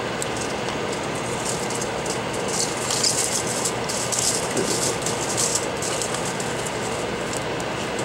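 Steady rushing noise of a fan running, with bursts of light, high crackling between about two and a half and five and a half seconds in.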